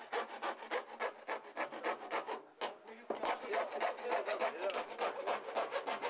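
A saw worked rapidly back and forth, cutting through the plastic casing of a washing machine in quick, even scraping strokes, pausing briefly about two and a half seconds in before carrying on.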